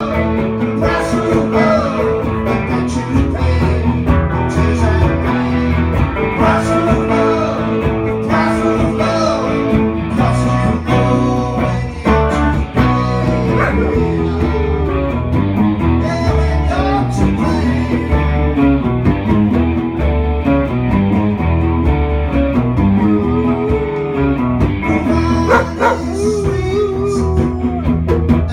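Electric guitar music played through an amp, with a dog howling along in wavering, gliding notes.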